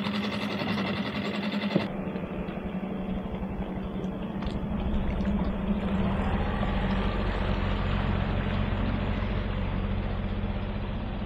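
A small boat's engine running steadily. About two seconds in the sound changes to a duller rushing run, with a low rumble that grows from about five seconds in.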